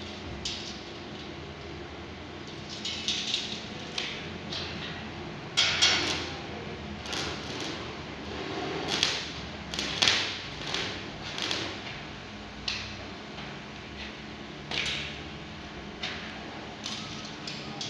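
Stick (arc) welder tack-welding square steel tubing: a series of short crackling bursts as the arc is struck and held briefly at each joint, the loudest about six and ten seconds in, over a steady low hum.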